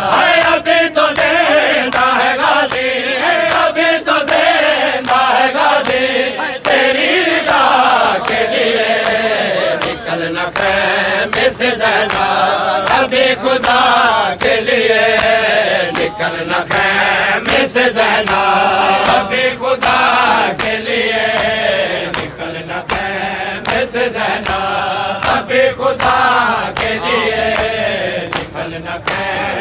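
Men chanting a noha, a Muharram lament, in chorus, with slaps of chest-beating (matam) keeping the beat throughout.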